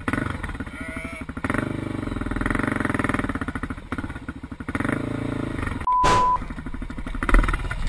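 An engine running, most likely a motorcycle, with a short steady beep about six seconds in.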